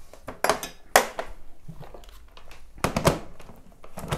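Several sharp clicks and knocks of hard plastic as the motor head of an electric food chopper is handled and fitted onto its lid, the loudest about a second in and again near three seconds.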